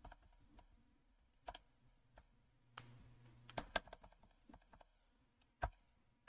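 Faint computer keyboard key presses: a few separate clicks spaced irregularly, with near silence between them.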